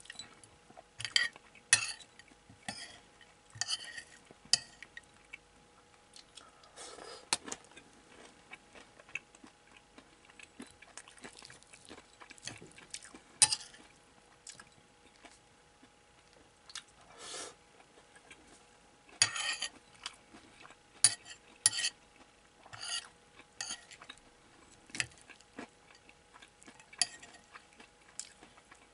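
Metal spoon scraping and clinking against a ceramic plate as crumbled hamburg steak is scooped and broken up: irregular taps and scrapes, a few louder clinks.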